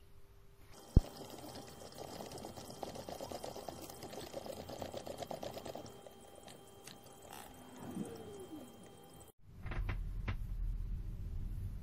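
A sharp metallic click, then several seconds of rough scraping and grinding as a hand tap is worked into the end of a stainless steel rod, with a squeak gliding down in pitch near 8 s. After an abrupt cut, a steady low hum takes over near the end.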